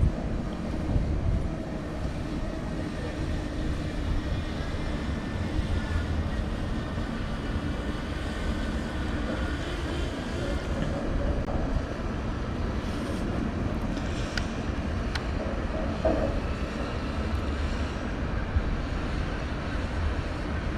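A small quadcopter drone's propellers humming in flight, wavering in pitch, over a steady rumble of wind on the microphone. Two faint ticks come about two thirds of the way through.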